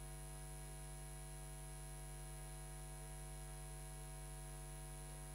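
Faint steady electrical mains hum with a light hiss, unchanging throughout.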